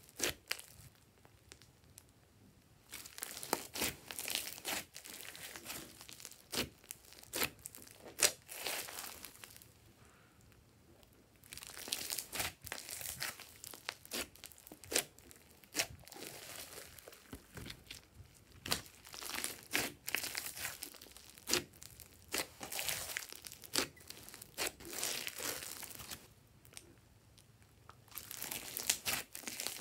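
Hands kneading and squeezing a large batch of thick glossy slime full of foam beads: irregular crackling clicks and crinkles in bursts, with a few brief pauses.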